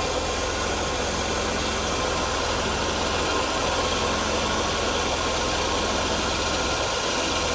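Mercedes-Benz W124 300E straight-six engine idling steadily.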